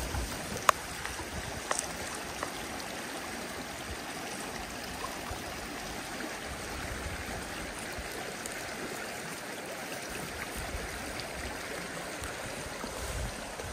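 Small, shallow spring creek running over a stony bed: a steady babble of flowing water, with two brief ticks in the first two seconds.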